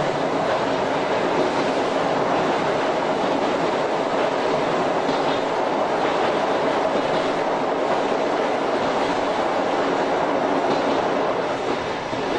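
Tobu 5700 series electric train with nose-suspended traction motors running at speed over a steel truss bridge: a steady rolling rumble of wheels on rail with a constant hum beneath it.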